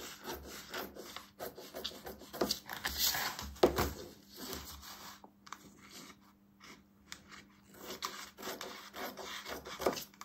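Scissors cutting through a thin clear plastic sheet from an old document folder, in a run of separate snips with a pause of about two seconds just past the middle.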